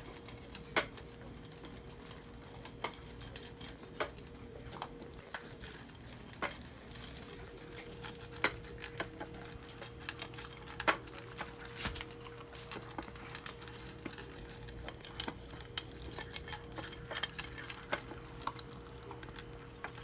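Puppies eating dry kibble from stainless steel bowls: irregular clinks and clicks of kibble and teeth against the metal, over a steady faint hum.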